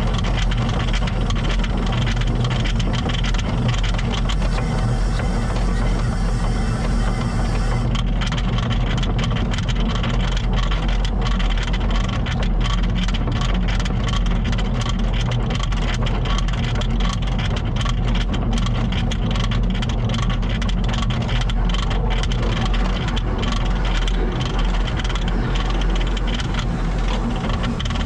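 1890 Cockerill steam tram locomotive running along tram track: a steady low rumble, with rapid clicks and knocks from about eight seconds in.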